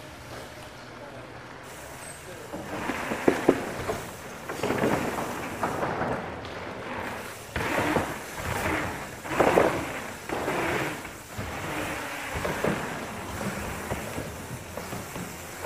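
Mountain bike being ridden: tyre and rattle noise that swells and fades in waves, with two sharp knocks a few seconds in.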